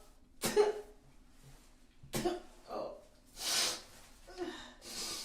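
A person retching and vomiting: a series of about six short, separate heaves and gags with brief pauses between them.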